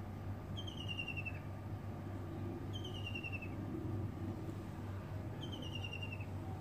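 A bird calling three times, each call a short, slightly falling trill of rapid high notes, about two to three seconds apart, over a low steady background hum.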